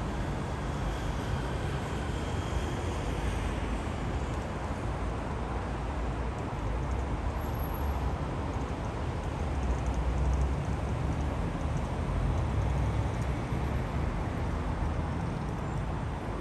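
Steady road traffic noise from a city riverside, a continuous low rumble with a constant hiss and no single vehicle standing out.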